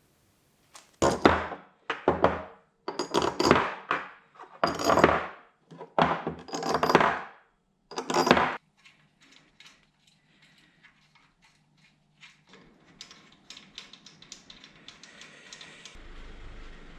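Work on engine parts at the bench: a run of about seven loud, short rushing bursts over the first eight seconds, then light metallic clicks and taps.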